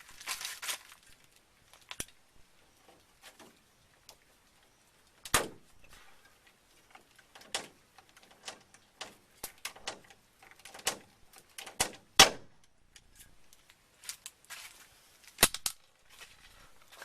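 A series of irregular sharp knocks and clicks of hard objects being handled, the loudest about five, twelve and fifteen seconds in.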